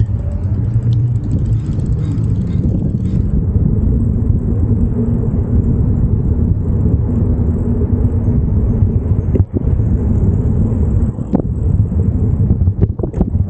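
Steady low rumble of city street traffic, with a few sharp clicks in the last few seconds.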